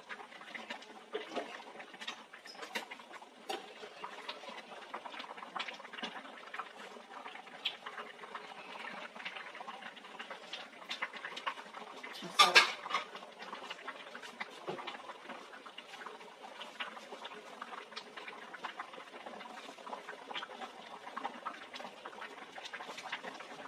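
Thick mung bean soup boiling in a stainless steel pot, bubbles popping and plopping in a steady crackle, with one brief, louder clatter about halfway through.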